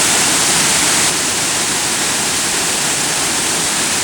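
Monsoon-swollen waterfall crashing in a steady, loud rush of white water, dipping slightly in level about a second in.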